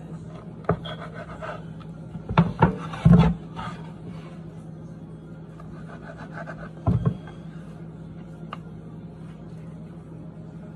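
A kitchen knife cutting through a baked cheese, cabbage and carrot tortilla, its blade scraping and knocking on a wooden cutting board. There are several sharp knocks, a cluster of them two to three seconds in and another about seven seconds in, over a steady low hum.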